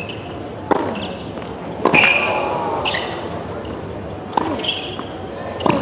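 Tennis rally on a hard court: about five racket strikes on the ball a second or so apart, some followed by short player grunts, with high sneaker squeaks between shots.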